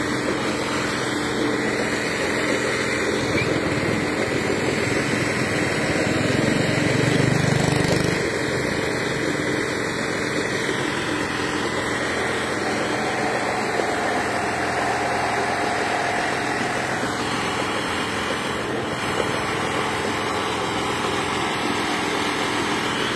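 An engine running steadily, with a deeper rumble that swells for a couple of seconds about six seconds in.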